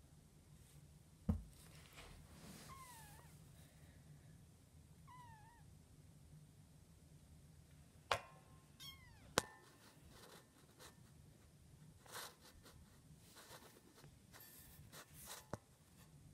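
A kitten mewing faintly: a few short, thin cries that dip in pitch, the first about three seconds in, the last about nine seconds in. A few sharp clicks or knocks stand out louder, over a quiet background hum.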